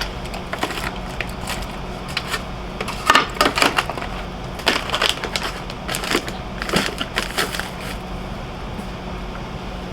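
Containers from the fridge clattering as they are handled and set down: irregular clusters of clicks and knocks, over a steady low hum.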